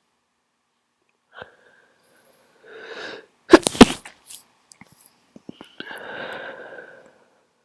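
A person with a bad cold sneezing: a drawn-in breath, then a loud sneeze in two sharp bursts about three and a half seconds in, followed by a longer breathy sound.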